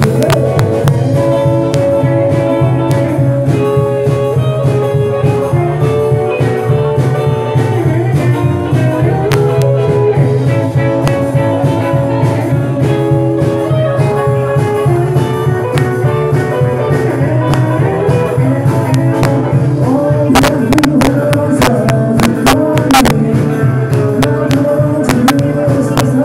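Live band playing a blues-rock number: electric guitars over a steady bass line and a drum kit.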